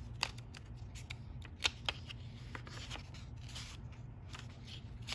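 Paper pages of a curriculum binder being handled and turned: light rustling with scattered clicks, and a couple of sharper snaps about one and a half to two seconds in.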